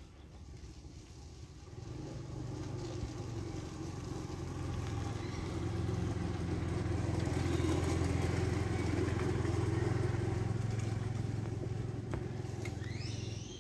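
A motor vehicle's engine running, a steady low hum that grows louder over several seconds and then eases off slightly.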